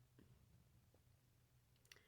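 Near silence: room tone with a faint low hum, a couple of faint ticks, and one sharp click near the end.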